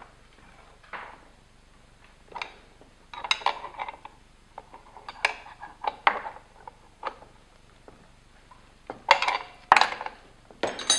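Steel open-end wrench clinking and scraping on a lock nut and the metal pedal box as the clutch push-rod nut is tightened: scattered short metallic knocks, loudest in a cluster near the end.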